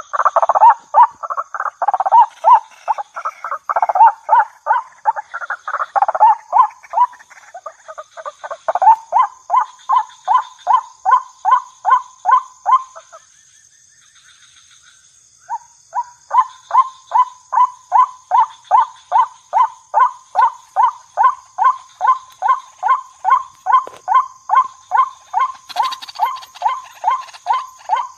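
Waterhen (jal murgi) calling: a long run of short pitched notes repeated about three times a second, as used for a hunting lure call. The notes pause briefly about halfway through, then resume at an even pace.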